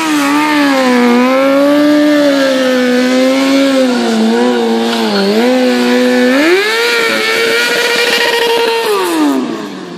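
Sport motorcycle engine revved hard during stunt riding. It is held at high revs with a wavering pitch, dips briefly around the middle, steps up to a higher, steady scream about six and a half seconds in, then falls away near the end.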